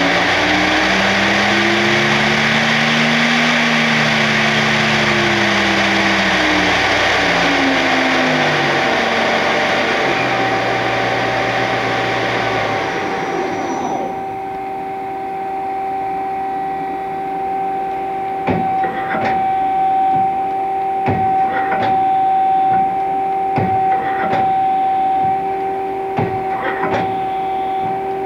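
CNC lathe spindle running, a loud rushing noise with a motor whine that rises and falls twice, then winding down and stopping about thirteen seconds in. A steady two-tone hum from the machine carries on, and sharp clicks and knocks come at uneven intervals through the last ten seconds.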